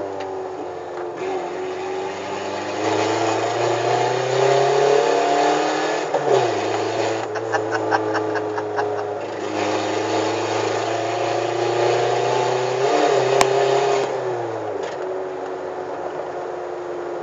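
VW Gol G4's four-cylinder engine pulling hard through the gears with a loud, open exhaust, its lambda sensor removed and the exhaust straight-piped. The revs climb, then drop sharply twice at the shifts. A rapid run of ticks comes around the middle, and a single sharp crack follows the second shift.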